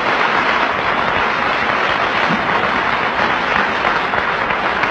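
Audience applauding, many hands clapping together in a dense, even patter.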